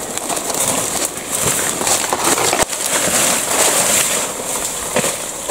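Leaves and undergrowth rustling and crackling as people push through dense forest vegetation on foot, with one sharp snap about two and a half seconds in. A steady high-pitched insect drone sounds underneath throughout.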